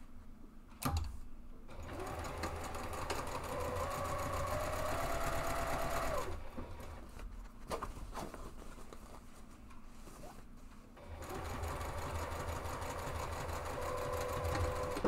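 Juki sewing machine stitching a side seam of a fabric box from the top edge down to the base seam. It runs in two spells: one from about two seconds in for some four seconds, and another from about eleven seconds in. A few clicks sound in the pause between them.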